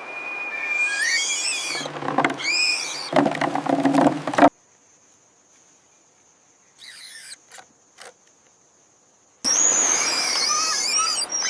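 High chirping, whistling animal calls that slide up and down in pitch, with a few low knocks among them, for the first four and a half seconds. They cut off into near silence with a faint steady high tone, then resume about nine and a half seconds in.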